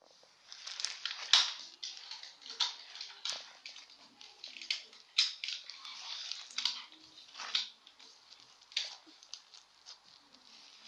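Slime mixed with small styrofoam beads being squeezed and kneaded by hand, giving irregular crackling and popping squishes that thin out near the end.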